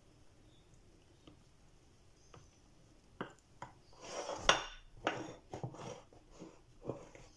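Glass baking dish being turned on a stone countertop while a silicone spatula spreads whipped cream in it: a string of short scrapes and knocks starting about three seconds in, the loudest a sharp knock of glass near the middle.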